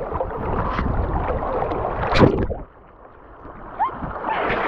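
Rushing creek water and splashing in a fast-flowing stream over slick rock, with a loud splash about two seconds in; the water noise then drops away abruptly for about a second before it comes back.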